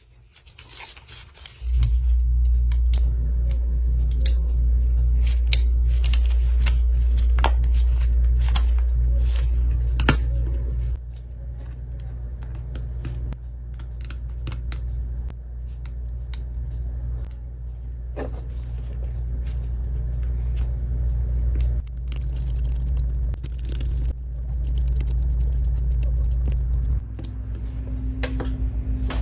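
A steady low hum from a running hot air rework station, with small clicks and scrapes of tools working on the Joy-Con's plastic parts. The hum starts abruptly about two seconds in and shifts in level a few times.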